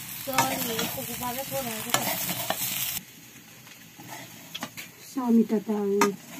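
A spatula stirring potatoes frying in an iron pan over a wood fire, with sizzling and sharp scraping clicks against the metal. A louder pitched sound comes in a little after five seconds in.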